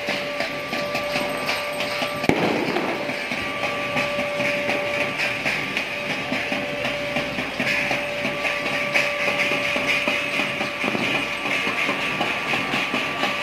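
Many people clapping and ringing bells in a dense, continuous clatter, with a long steady tone that stops and starts a few times through it and a single sharp bang about two seconds in.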